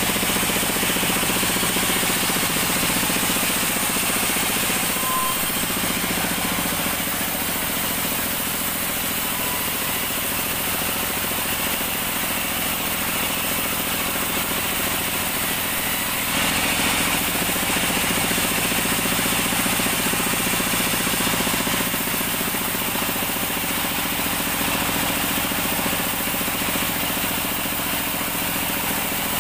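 Sawmill band saw running steadily while ripping an acacia log, a dense, loud machine noise.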